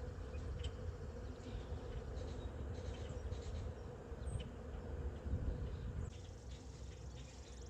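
Honeybees buzzing around the hive in a steady hum, with a few faint clicks.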